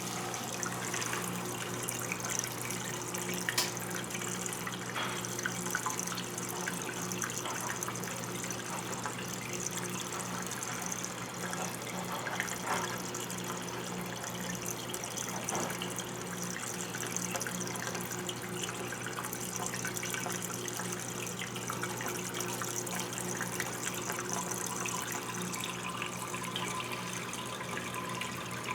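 Brastemp 14 kg top-loading washing machine running: water running and splashing inside it over a steady low motor hum, with a few small clicks.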